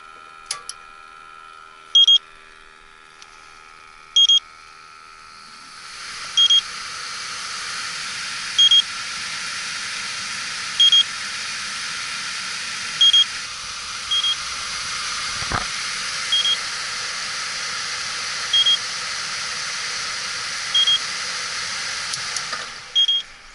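Electronic refrigerant leak detector giving a short, high, two-pitch beep about every two seconds, its steady searching rhythm. About six seconds in, a steady rushing hiss starts under the beeps and stops near the end.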